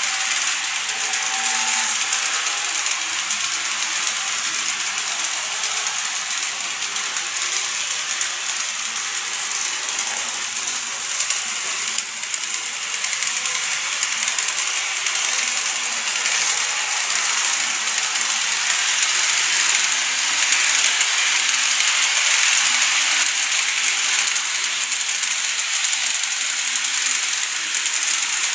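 Seibu 9000 series model train running along plastic viaduct track: a steady fine rattling clatter of the motor and wheels on the rails, a little louder about two-thirds of the way through.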